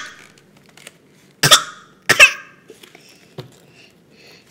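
A toddler's voice close to the microphone: two short, sharp vocal bursts about a second and a half and two seconds in, with a few faint clicks around them.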